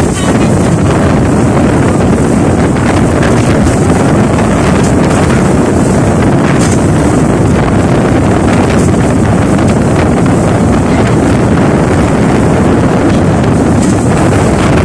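Loud, steady wind noise buffeting the microphone, a rough low rumble with no breaks.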